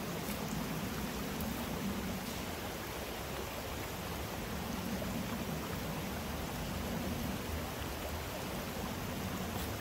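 Steady rush of creek water running over rocks, an even noise that neither rises nor falls.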